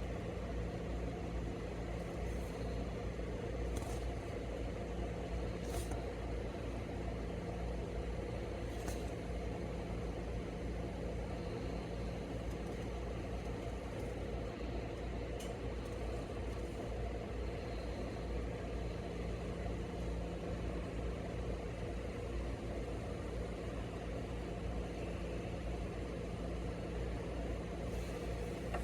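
Steady low background hum with a few faint, scattered clicks.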